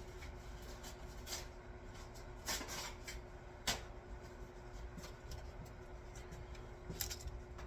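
Quiet handling noises: scattered light clicks, a brief rub about two and a half seconds in and a sharper click just before four seconds, over a steady faint hum.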